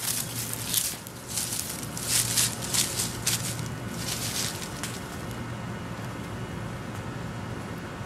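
Footsteps swishing and rustling through dense leafy ground cover for the first four seconds or so, then fading, over a steady low hum.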